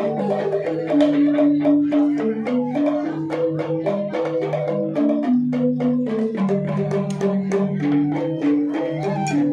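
Balinese rindik gamelan ensemble playing: bamboo xylophones struck in fast, dense notes under bamboo suling flutes holding a stepping melody.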